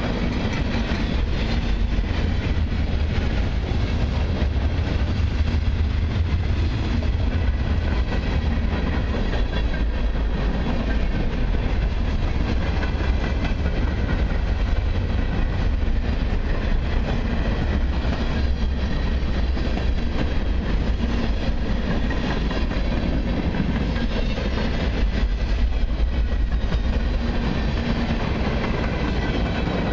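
Freight cars of a long mixed freight train rolling past: tank cars, covered hoppers and boxcars making a steady, loud rumble, with the wheels clicking over the rail joints.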